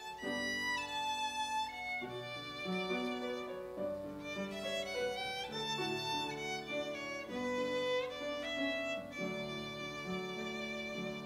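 Violin playing a melody over piano accompaniment, an instrumental interlude between sung verses of a hymn.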